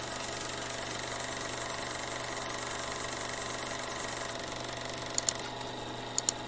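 Steady mechanical hum, with quick pairs of computer-mouse clicks about five and six seconds in.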